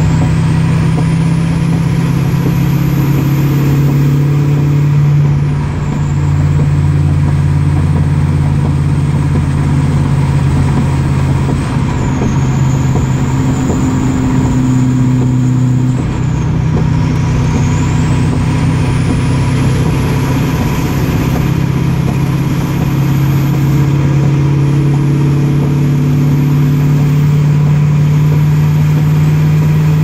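Duramax diesel with a single-turbo setup, heard from inside the cab while pulling a fully loaded three-car wedge trailer: the engine drones under load while a high turbo whistle climbs as the turbo spools. The whistle drops back and climbs again several times.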